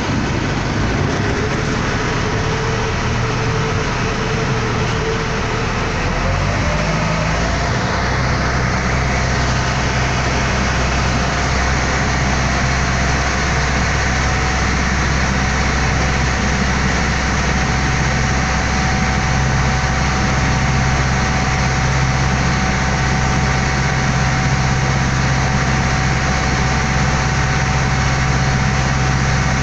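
Water taxi's engine running steadily under way, with a constant rush of water and wind; about seven seconds in its note rises a little and settles at a slightly higher pitch.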